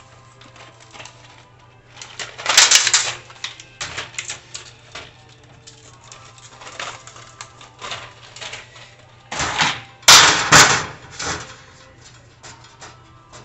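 Small metal grill parts and hardware being handled, giving scattered clicks and clinks. Louder clattering comes about two and a half seconds in and again around ten seconds in.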